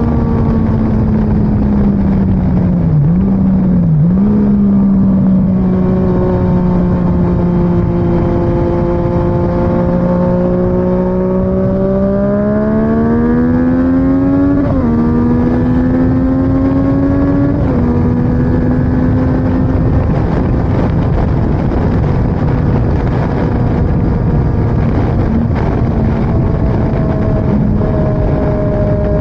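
Motorcycle engine at road speed under heavy wind rush. The engine note holds steady, then climbs twice about halfway through, with a sudden drop in pitch after each climb as the rider shifts up, and the engine then sinks beneath the wind noise.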